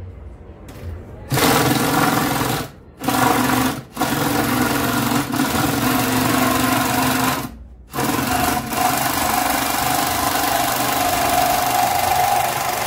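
Cordless drill driving a reciprocating-saw attachment, its bimetal wood blade sawing through a wooden beam with a hard, rapid rattle; the attachment vibrates heavily. It starts about a second in, stops briefly three times, then runs on steadily.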